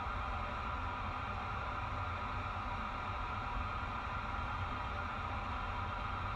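Steady rushing noise and low rumble of a fighter jet heard from inside the cockpit in flight, with no changes or distinct events.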